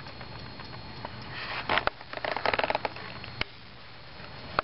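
Handling noise: a burst of rustling and rapid clicking that starts about a second and a half in and lasts over a second, then a single sharp click. A faint steady high whine runs underneath.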